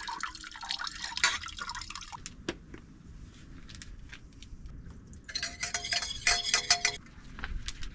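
Water from the tap of a plastic water container running into a small metal saucepan for about two seconds near the end, ringing faintly in the pan. Before that come small clinks and drips as the pan and the washing-up liquid bottle are handled.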